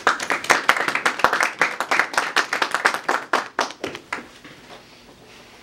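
Small audience clapping, the separate claps distinct, dying away just after four seconds in.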